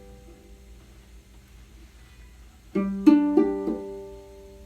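A ukulele chord strummed in about four quick down-and-up strokes a little under three seconds in, then left to ring and fade; before it, the last of the previous chord dies away.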